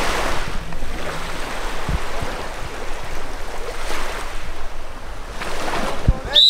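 Small sea waves washing on a beach, with wind gusting over the microphone in slow surges. A loud, shrill whistle blast starts at the very end.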